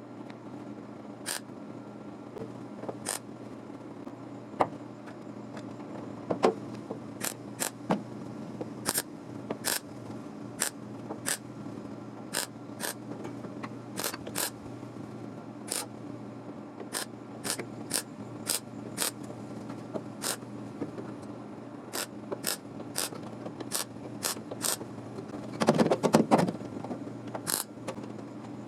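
Irregular sharp metallic clicks, about one or two a second, over a steady low hum, with a short burst of rattling near the end.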